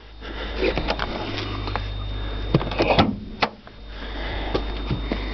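Clicks and clunks from opening the car's bonnet, as it is released and lifted; the loudest knocks come about two and a half to three and a half seconds in.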